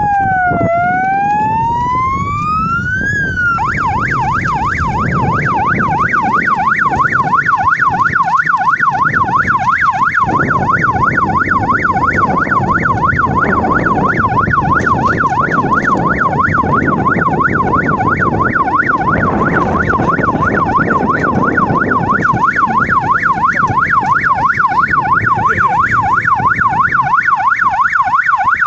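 Electronic three-tone police-style siren fitted to an electric bicycle: a slow falling-and-rising wail, switching about three and a half seconds in to a fast warbling yelp that keeps going steadily, over a low rumble.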